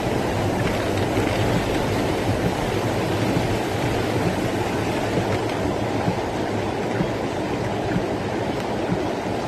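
Rainwater rushing in a steady torrent down a street during a cloudburst.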